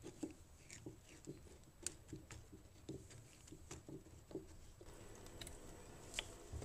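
Faint clicks and taps of a washing machine hose's plastic coupling being unscrewed from the tap by hand, with a cloth rubbing. About five seconds in, a faint steady hiss sets in as water drains from the pipe.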